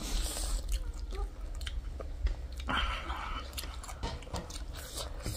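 Close-miked chewing of a mouthful of wet chatpate, a spicy puffed-rice snack, with many small moist clicks. A metal spoon scrapes the plate at the start.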